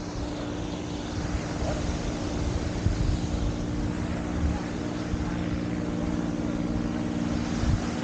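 Steady engine drone, a hum of several held tones, with wind buffeting the microphone in gusts.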